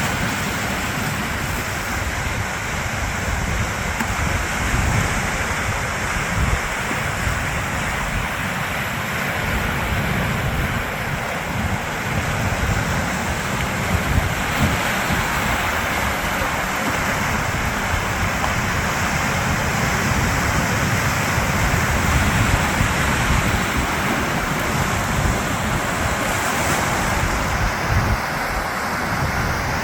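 Sea waves washing steadily, with wind buffeting the microphone in a low, gusty rumble.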